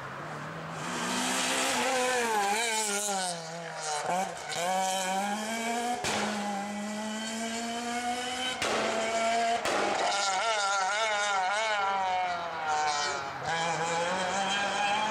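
Rally car engines revving hard as the cars race past one after another, pitch climbing under full throttle and dropping sharply at each gear change or lift.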